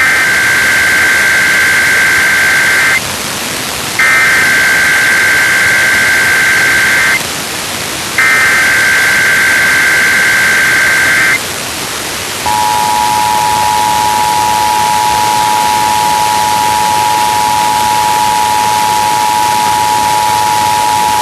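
Emergency Alert System SAME header: three bursts of warbling data tones, each about three seconds long with a second's gap between, followed by the two-tone attention signal (853 and 960 Hz) held steady for about nine seconds. Heavy FM radio static hiss runs underneath, as received off the air.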